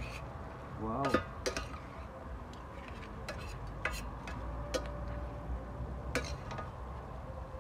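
A utensil stirring in a cooking pot, with a series of sharp clinks and knocks against the pot. A brief rising squeak comes about a second in.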